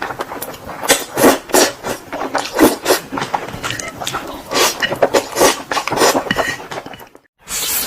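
Close-miked eating of instant noodles and chicken: wet chewing and mouth smacks in quick, irregular bursts, with the odd clink of cutlery. The sound cuts out completely for a moment near the end.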